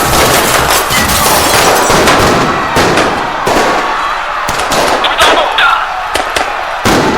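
A loud, dense din of many sharp bangs and cracks. After about two and a half seconds it thins into separate sharp cracks with short gaps between them.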